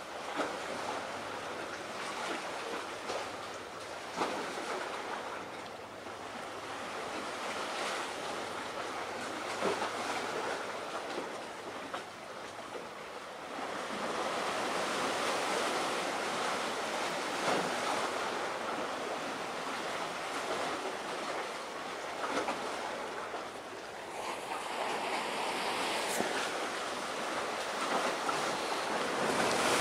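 Sea waves washing with wind on the microphone: a steady rushing noise that gets louder about halfway through.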